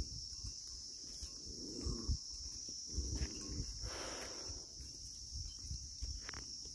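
A steady, high-pitched insect drone, with footsteps and hooves scuffing on stony ground and a short animal call about two seconds in.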